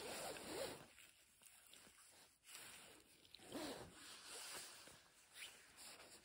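Faint, on-and-off swishing of a padded jacket sleeve rubbing as a hand strokes a dog's head and fur.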